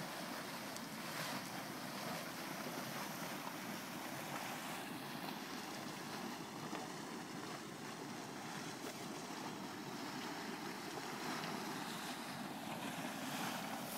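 A steaming hydrothermal mud pot giving off a steady rushing noise.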